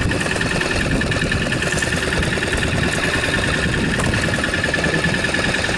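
Fishing boat's engine running steadily, with a constant high whine over its drone.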